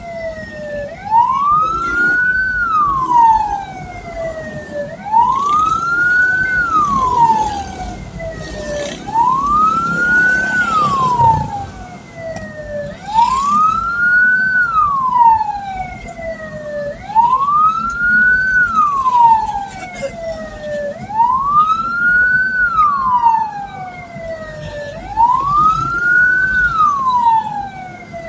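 Hearse siren wailing in a slow, even cycle, its pitch rising and then falling about every four seconds, over a low vehicle rumble.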